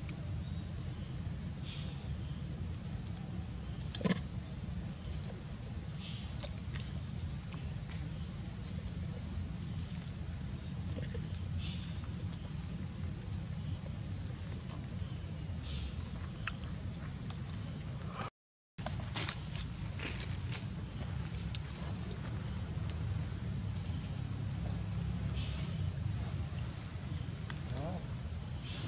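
Insects shrilling steadily on one high pitch over a low rumble. The sound drops out completely for a moment about two-thirds of the way through.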